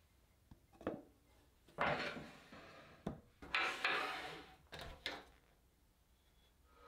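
Wood lathe tool rest being repositioned by hand: the metal banjo scrapes as it slides along the lathe bed, with a few sharp clunks as it is set and its locking lever is worked. The lathe itself is not running.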